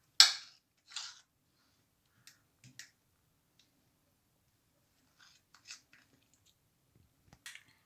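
Two short rustles near the start, the first the loudest, then a few faint clicks and taps. These are the handling sounds of a bowl of batter being poured out over a pie filling, and the pour itself is barely heard.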